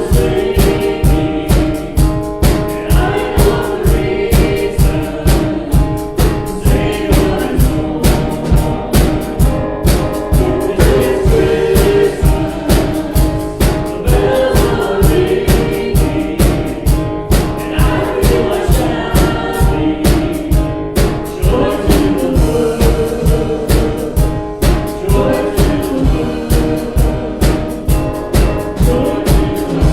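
Worship song with singing over a steady, strong beat of about two beats a second; the beat stops at the very end.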